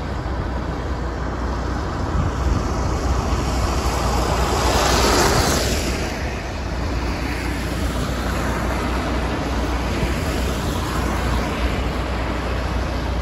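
Traffic on a wet road: steady tyre hiss and engine noise over a constant low rumble, with a vehicle swishing past about five seconds in.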